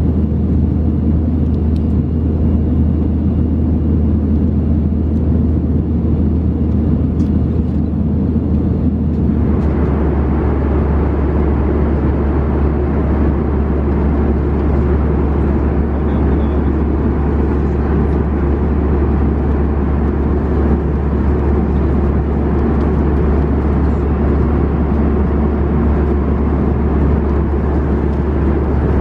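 Steady cabin noise of an Airbus A319 in flight: a continuous low engine drone under a rushing hiss of airflow. About a third of the way through, the hiss gets brighter and louder.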